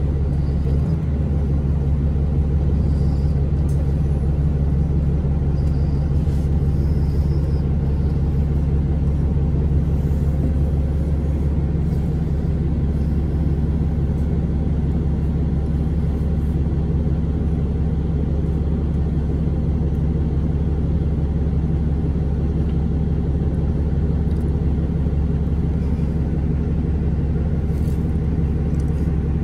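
2011 Orion VII bus's Cummins ISL9 diesel engine running with a steady low drone, heard from inside the bus.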